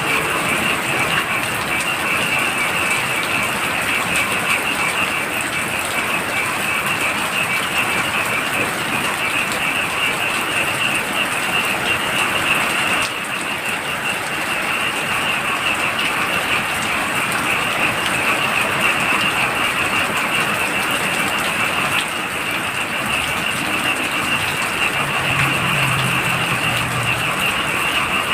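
Heavy rain pouring steadily, with a dense chorus of frogs trilling in a high, fast-pulsing band over the rain.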